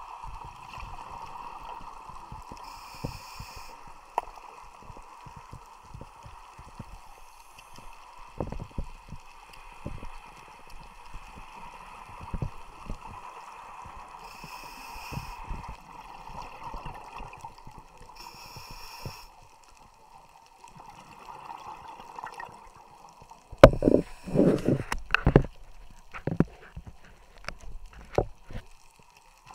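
Underwater sound of a scuba diver breathing through a regulator, heard through the camera housing. A steady hum runs underneath, with short hisses of inhaling every few seconds and a loud burst of gurgling exhaled bubbles about three-quarters of the way through.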